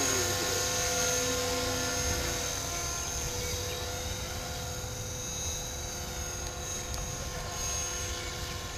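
Align T-Rex 450 Pro electric RC helicopter in flight: the steady whine of its motor and spinning rotor blades, slowly growing fainter.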